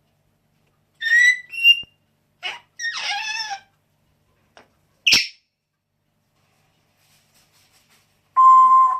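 A pet animal making a run of short, high-pitched squeaky calls and chirps, then one sharp call, and near the end a steady held whistle.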